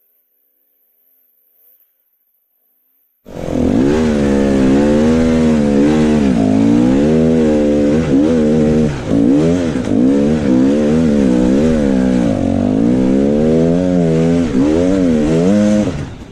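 Dirt bike engine revving up and down again and again under the throttle while working up a steep hill climb. It cuts in abruptly after about three seconds of near silence and drops away near the end.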